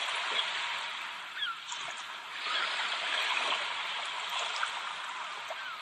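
Seaside ambience: ocean waves washing steadily, swelling about halfway through, with faint short bird calls over them.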